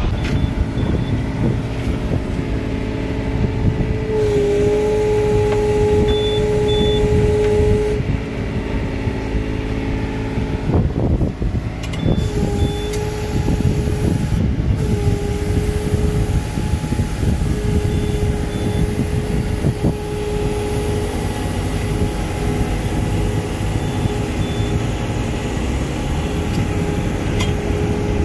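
Tow boat's engine running under way, with wind and water noise and a steady mid-pitched whine that drops out and returns several times.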